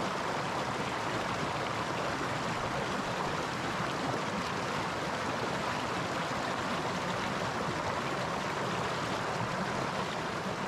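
River water flowing steadily, a continuous even rushing.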